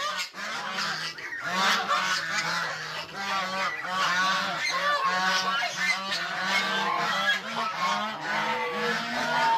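A flock of hungry domestic geese honking together while waiting to be fed, many calls overlapping with no break.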